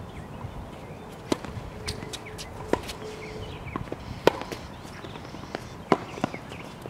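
Tennis balls struck by racquets and bouncing on a hard court: sharp pops at an uneven pace, a bit under one a second, the loudest about four and six seconds in.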